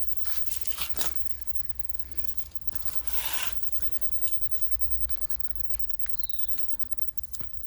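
Plastic bumper trim being handled and pressed into its clips: rubbing and scraping with a few sharp clicks, including a longer rub about three seconds in, over a low steady hum.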